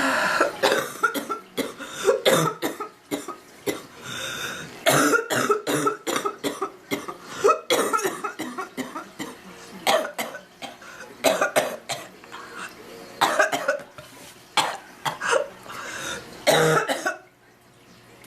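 A sick woman coughing hard in repeated fits, several sharp coughs at a time in clusters, with the coughing stopping shortly before the end.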